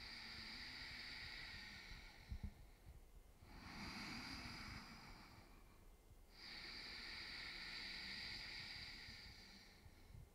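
Slow, deep breaths in and out, close to a handheld microphone, each lasting a few seconds with short pauses between: a guided deep-breathing exercise.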